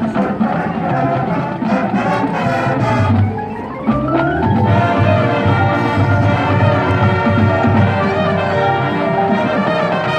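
Marching band playing: brass with drums and front-ensemble mallet percussion. About a third of the way in, a rising run leads into loud held brass chords.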